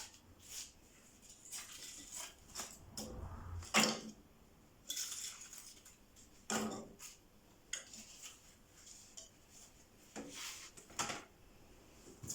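Scattered clicks, clinks and knocks of hard objects being handled, the loudest about four seconds in, with no vacuum motor running.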